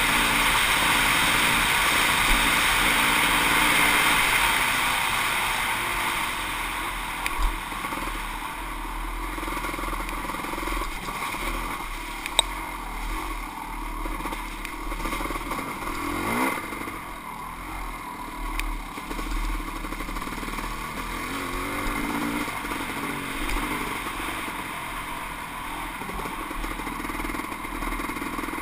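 Kawasaki KX500 two-stroke dirt bike engine running under load, heard from the rider's helmet camera. There is a sharp knock about seven seconds in and another about twelve seconds in, and the engine revs up quickly about sixteen seconds in.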